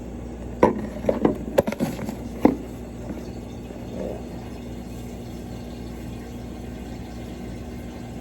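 Cookware and utensils clattering: a quick run of sharp knocks and clinks in the first few seconds, over a steady low hum.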